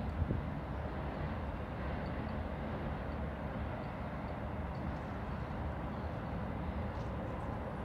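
Steady low rumble of distant heavy vehicles crossing the river bridges.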